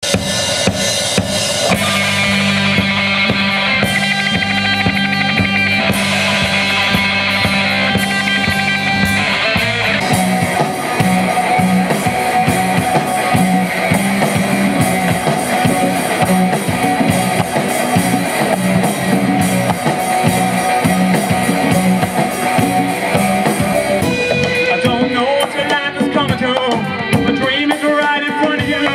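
Live rock band playing with electric guitars, bass and drum kit. Sustained chords ring over a steady low drone, then about ten seconds in the music moves into a faster, driving rhythm, and the sound changes again near the end.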